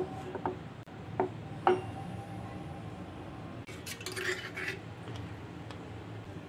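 Steel kitchen utensils clinking: four sharp metallic clinks with a short ring in the first two seconds, then a brief rustling hiss about four seconds in.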